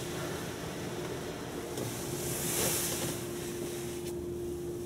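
High-pressure water spray from a Ryko Ultrasonic touch-free in-bay car wash hissing against the car's windows, heard from inside the cabin, with a steady hum beneath. The spray swells about halfway through, then drops off sharply near the end as the jets move away.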